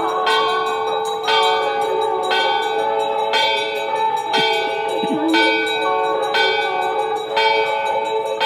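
Hindu temple bells rung for aarti: clanging strokes about once a second over a continuous ringing tone.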